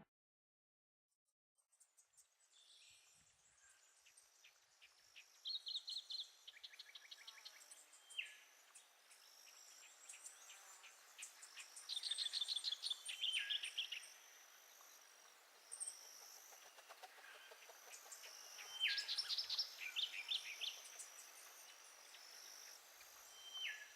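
Forest birds singing over a steady high insect hum, starting about a second and a half in: fast trilled phrases repeated roughly every seven seconds, and short notes that drop sharply in pitch.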